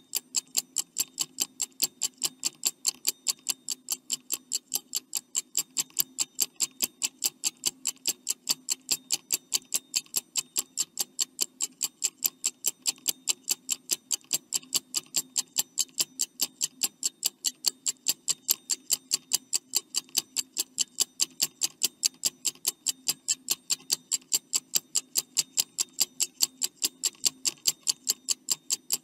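Stopwatch ticking sound effect, rapid, even clicks that keep a steady pace throughout, counting down the answer time.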